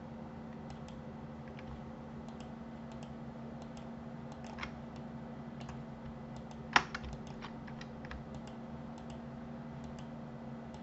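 Sparse, faint clicks of a computer mouse and keyboard, with one sharper click about two-thirds of the way through, over a steady low hum.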